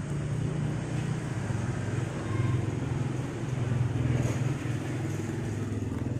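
An engine running steadily with a low hum, swelling slightly twice around the middle.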